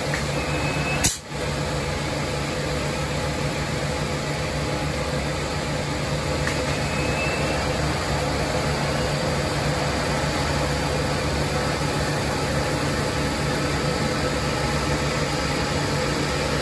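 Steady droning hum of boiler-house machinery around an insertable water cannon, with one sharp click about a second in.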